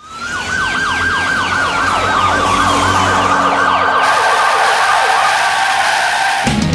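Siren-like wail opening a metal song: a steady tone slowly falling in pitch, with quick falling sweeps about four times a second that fade out partway through. Near the end a heavy metal band with drums and guitar comes in.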